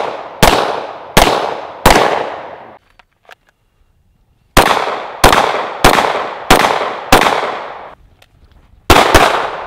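Semi-automatic pistol fire: three shots about two-thirds of a second apart, a pause of a couple of seconds, then five more at the same pace and a quick pair near the end. Each sharp crack is followed by a long fading echo.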